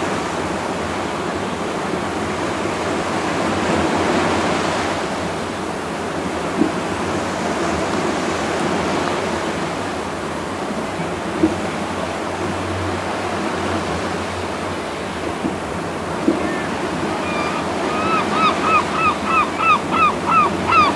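Steady wash of sea surf, with a bird calling a quick run of repeated, falling notes near the end.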